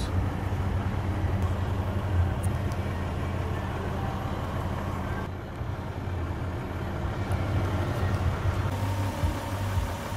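A steady low rumble and hum from a running motor vehicle.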